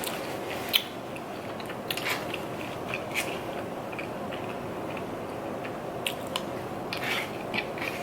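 A person chewing and biting fried crab rangoon close to the microphone. A few short crisp crunches and mouth clicks sit over a steady background noise.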